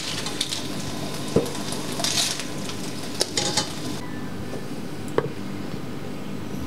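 Sauce sizzling steadily in a pan as it is stirred with a utensil, with a few sharp knocks of the utensil against the pan.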